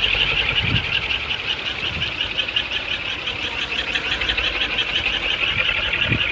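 Kolecer, a bamboo wind-driven propeller rattle, spinning fast in strong wind and giving off a steady, rapidly pulsing high whir. Low wind buffeting rumbles underneath.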